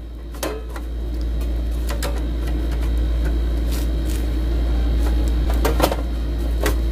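Thin perforated sheet-metal cover of an electric stove being handled and fitted back onto its frame: about six light metallic taps and clinks, over a steady low hum.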